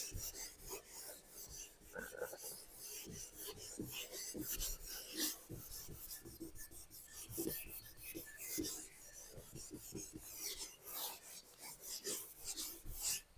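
Handwriting: a pen or marker making short, irregular scratchy strokes across a writing surface, faint.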